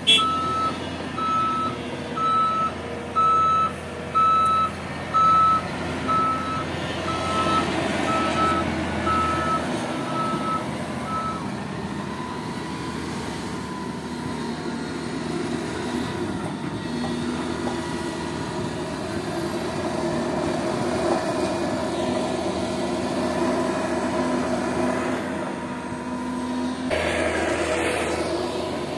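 Cat 330 GC excavator's diesel engine and hydraulics working under load, the engine note rising and falling as it digs and swings. A reversing alarm beeps a bit faster than once a second for about the first ten seconds, and a brief burst of rushing noise comes near the end.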